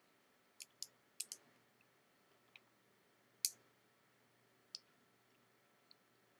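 About eight sharp, irregular clicks over five seconds, the loudest a little past the middle, against near silence.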